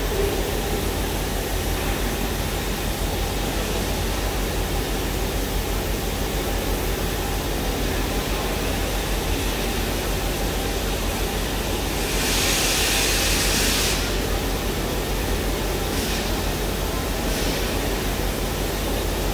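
LMS Royal Scot class steam locomotive 46100 standing with a steady low hum and a light hiss of leaking steam. About twelve seconds in, a louder burst of steam hiss lasts about two seconds, and two short, fainter hisses follow a few seconds later.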